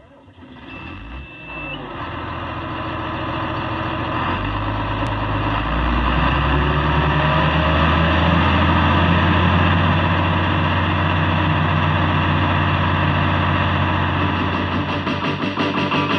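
Combine harvester's diesel engine running and throttling up, growing louder in steps over the first six seconds and then holding a steady pitch. A high steady electronic beep sounds for about a second near the start.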